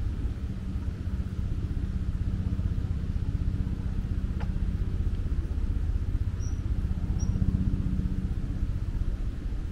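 Steady low rumbling rush of the Vistula river's flowing water. Two brief high chirps come about six and seven seconds in.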